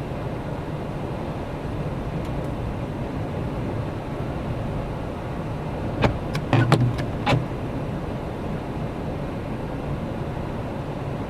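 Steady low rush of blizzard wind. A quick run of about five sharp clicks and knocks comes a little past the middle.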